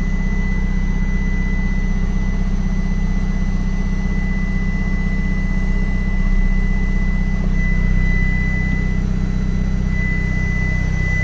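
Isuzu FTR truck's diesel engine idling steadily, heard from inside the cab as an even low drone, with a thin steady high tone over it.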